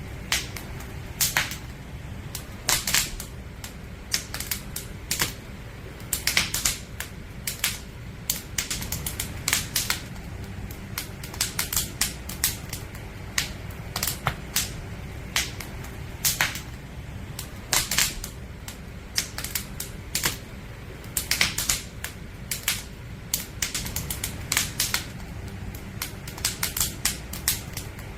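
Firewood burning in a campfire, crackling with irregular sharp pops, some coming in quick clusters, over a steady low rumble.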